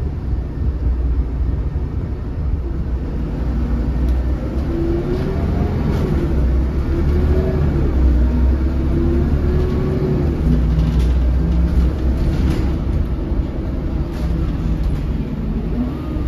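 2008 MAN 16.240 Designline bus driving, heard from inside the cabin: a steady low rumble of the diesel engine and road, with a whine that rises and falls in pitch through the middle and a few faint rattles.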